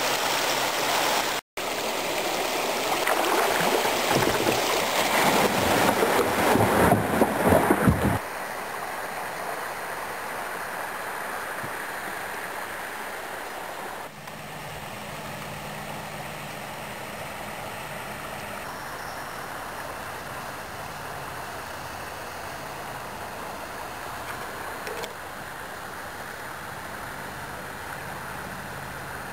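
Creek water running and gurgling, loud for the first eight seconds or so. It then drops to a quieter, steady hiss with a faint low hum.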